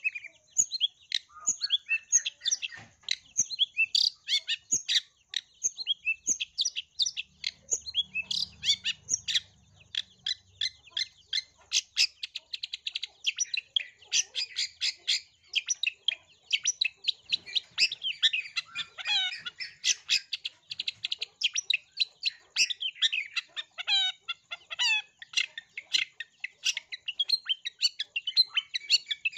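Long-tailed shrike (cendet) singing a fast, unbroken stream of chattering chirps and trills, a song packed with mimicked calls of other birds, such as the rapid sparrow-like 'tembakan gereja' phrases.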